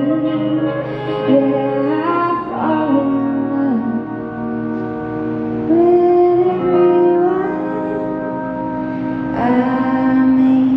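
Slow live song: a pedal steel guitar plays long held notes, some sliding up and down in pitch, over guitar chords.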